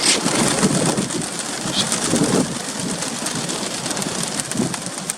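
Strong, gusty wind buffeting the microphone in a steady rushing roar, with a brief sharp rustle right at the start.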